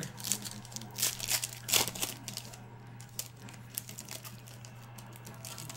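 Trading card pack wrappers crinkling and cards being shuffled and handled, busiest in the first two seconds and then sparse light clicks, over a steady low electrical hum.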